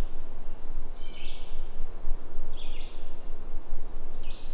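A bird giving three short, harsh calls about a second and a half apart, over a steady low rumble.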